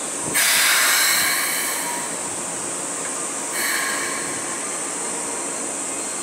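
Keikyu New 1000 series electric train's air brakes hissing at the platform as it makes a small move to correct its stopping position. A sudden long hiss comes about half a second in, and a shorter one about three and a half seconds in.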